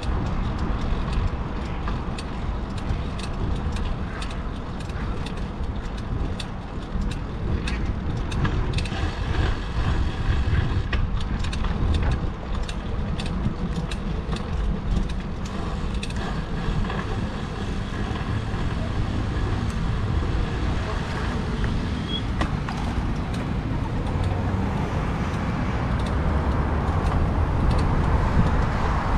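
Road traffic heard from a bicycle-mounted GoPro while riding: a steady low rumble with many short clicks and rattles.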